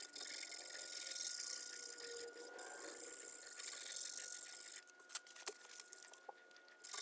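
Abrasive paper rubbed by hand over a steel saw-blade ulu blank in wet sanding, a scratchy hiss that swells and fades with each stroke. It dies down about five seconds in, leaving a few light clicks.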